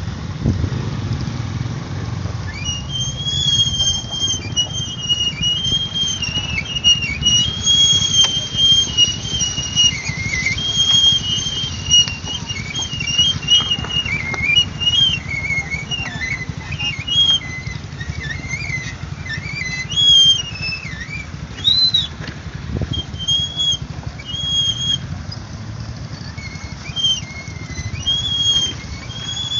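A series of short, high-pitched whistled calls that rise and fall in pitch and repeat on and off, over a steady low rumble.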